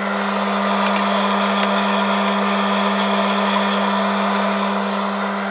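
Hot air popcorn popper roasting coffee beans: its fan motor hums steadily under a rush of blown hot air. The beans are in the browning phase, before first crack.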